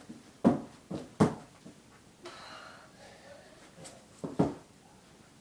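Hands and feet of a child doing cartwheels thudding on a carpeted floor: three thumps in the first second and a half, then two more close together near the end.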